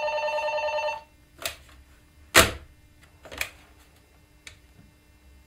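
Corded desk telephone ringing, stopping about a second in as it is answered. This is followed by a few clunks and knocks of the handset being lifted and handled, the loudest at about two and a half seconds.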